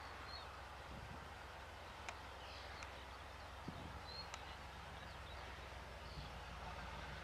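Class 31 diesel locomotive's engine heard from a distance as a low, steady hum while it approaches along the line. A few short bird chirps and faint ticks sound over it.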